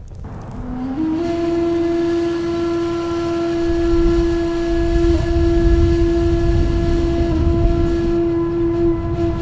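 One long, steady note held for about eight seconds, with a slight wobble in pitch near the middle. From about three and a half seconds in, wind rumbles on the microphone beneath it.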